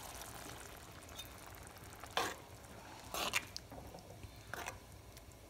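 A spoon stirring coconut milk into a thick prawn curry in a pot, three short scrapes and sloshes against a faint simmering sizzle over a very low flame.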